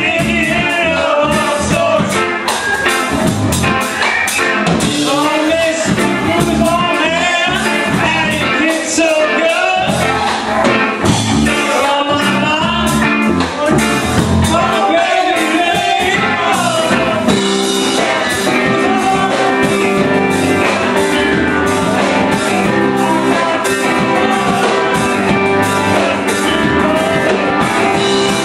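A rock-and-roll song with a singing voice through roughly the first half, then carrying on as instrumental band music.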